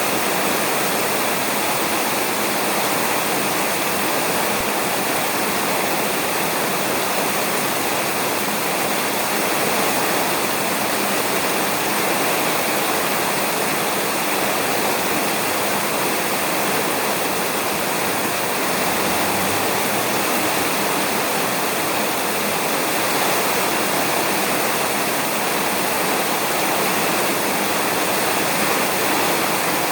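Rain falling steadily on a roof, an even hiss that does not let up.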